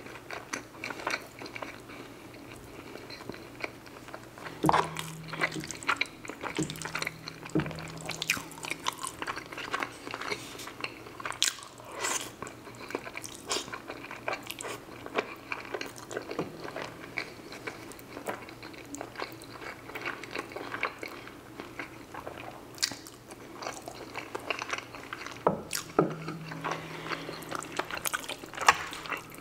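Close-miked chewing and wet mouth sounds of a man eating creamy fettuccine alfredo, with many small smacks and clicks and a few brief low hums. A sharp click near the end comes as the fork works in the pan of pasta.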